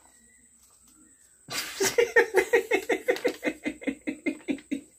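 A woman laughing hard, a quick run of high-pitched ha-ha-ha pulses, about six a second, starting about one and a half seconds in after a short quiet pause.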